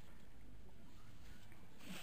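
Faint, steady murmur of a waiting crowd, with a brief louder rustle or voice near the end.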